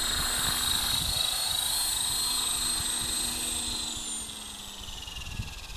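Electric RC helicopter's motor and rotor whine, steady and high-pitched, then dropping in pitch and fading about four seconds in. Wind rumbles on the microphone throughout.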